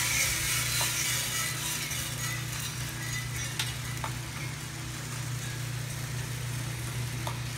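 Freshly roasted coffee beans dropping from a US Roaster Corp 3-kilo drum roaster into its cooling tray and being swept around the perforated tray by the stirring arms: a steady rustling hiss, strongest at first as the beans pour in, over the constant hum of the roaster's motors. There are a few light clicks from the beans and the arms.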